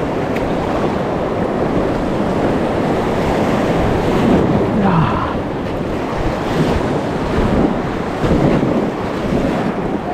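River rapids rushing and splashing around an inflatable kayak, with wind buffeting the microphone.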